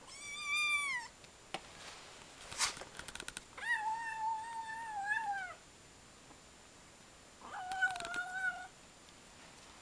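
A cat meowing three times, long drawn-out meows, the first two dropping in pitch at the end and the middle one the longest. A few sharp clicks fall between the first and second meow.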